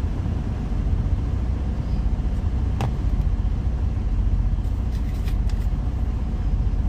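Steady low rumble of a semi-truck's idling diesel engine, heard from inside the cab. There is a sharp click about three seconds in and a few fainter ticks a couple of seconds later.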